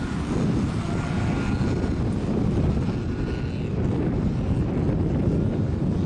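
Wind buffeting the microphone: a loud, steady, gusty low rumble.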